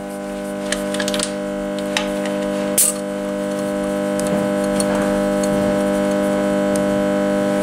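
A steady hum made of several tones at once, slowly growing louder, with a few light clicks and one sharper click about three seconds in.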